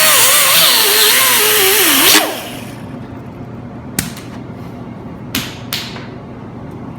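Angle grinder cutting into steel, its motor pitch sagging as it is pressed into the work, grooving out a crack in the mower frame ready for welding. It is lifted off and spins down about two seconds in; a sharp click follows, then two short knocks.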